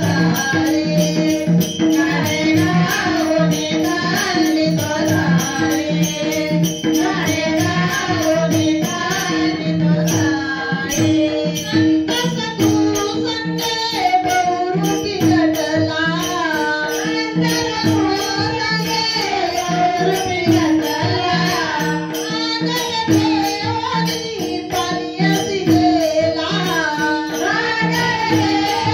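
Devotional bhajan (gaulan) singing over a steady held drone, with jingling hand percussion keeping a regular beat.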